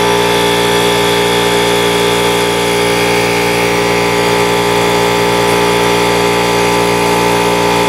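Air compressor running steadily with an even, unbroken motor drone.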